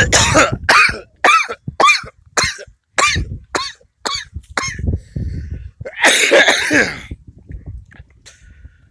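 A man's coughing fit: about ten short coughs in quick succession, then one longer cough about six seconds in. It is the bad cough he says he has come down with.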